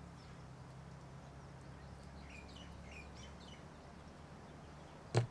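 Faint chirps of small birds over a steady low hum, with one sharp knock near the end.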